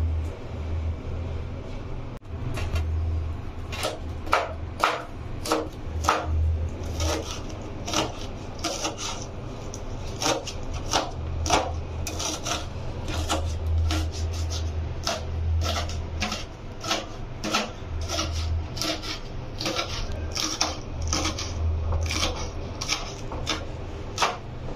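Knife chopping green chillies on a wooden chopping board: a run of sharp knocks of blade on wood, a few per second, starting about three seconds in. A low rumble comes and goes beneath it.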